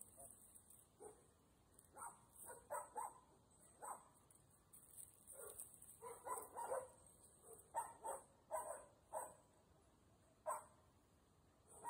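A dog barking faintly, short barks coming in irregular groups of two or three with quiet gaps between.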